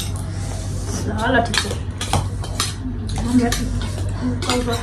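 Metal spoons and forks clinking and scraping on steel plates as several people eat noodles, in many short irregular clicks.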